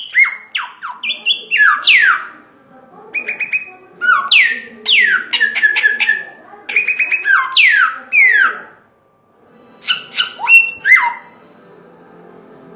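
Songbird, the samyong, singing loudly in varied phrases of clear whistled notes and quick falling sweeps. It breaks off briefly about nine seconds in, sings again, then stops about eleven seconds in, leaving only a faint background.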